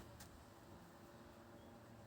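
Near silence: faint background hum with two soft clicks right at the start.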